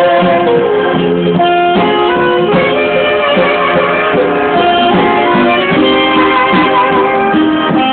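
Instrumental band music, with many pitched notes from several instruments playing together at a steady, loud level.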